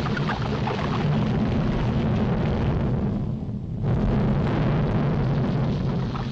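Continuous low rumbling noise of an erupting volcano, a cartoon sound effect. The upper hiss thins out briefly a little past three seconds in, then the full rumble returns.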